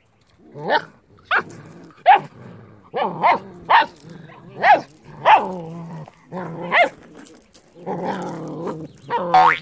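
Malaklı–Kangal cross puppies play-growling and yapping while tugging at the same chew object: about ten short, sharp yaps with low growls between them, and a longer growl ending in a squeal near the end.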